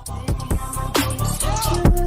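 Hip hop music with a heavy bass line, regular drum hits and a melodic line.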